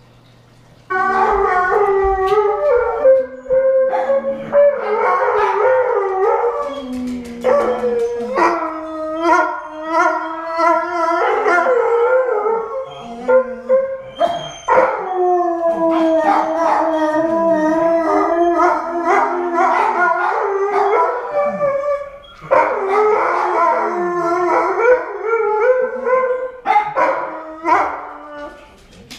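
Dog howling in long, wavering howls broken by short yips, starting about a second in.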